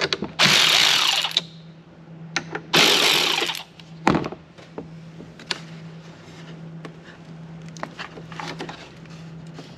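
Cordless electric ratchet running in two bursts of about a second each on a battery terminal nut, then a knock about four seconds in as the tool is set down, followed by light clicks of handling.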